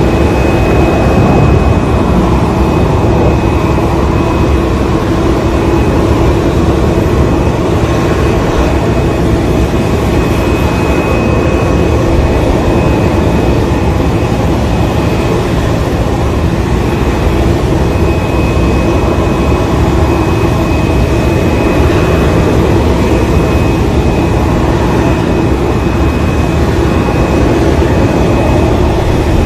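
Steady loud drone of aircraft or ground-equipment engines beside a parked Boeing 747 jet, with a faint high whine that comes and goes.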